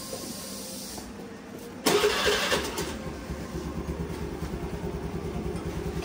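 Motor scooter engine starting about two seconds in with a short loud burst, then settling into a steady idle with a quick, even pulse.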